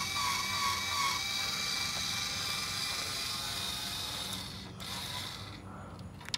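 Cordless drill/driver spinning a bit to back out a screw holding the car's grille: the motor winds up quickly and runs steadily for about four and a half seconds, stops, then gives a brief second spin.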